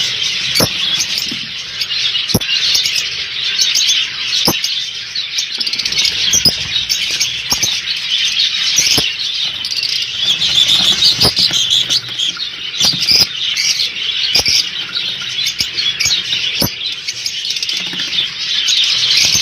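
A flock of lovebirds chattering at once, a dense unbroken mass of high-pitched calls, with frequent sharp clicks among them.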